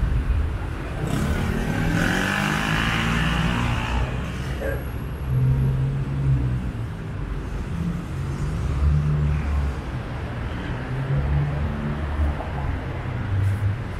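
Street traffic. A motor vehicle passes in the first few seconds, its engine note sliding in pitch over tyre hiss, then a steady low traffic rumble carries on.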